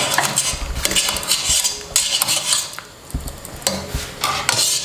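A metal mesh strainer stirring through hot water in a stainless steel pot of blanching squid and shrimp, swishing water and clinking and scraping against the pot, with a few knocks.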